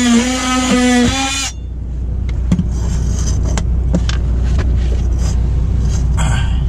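Ryobi ONE+ cordless drill whining under load as it trims a plastic mounting tab, its pitch dipping and rising, then stopping about a second and a half in. After it, a steady low hum with scattered light clicks and knocks of handling.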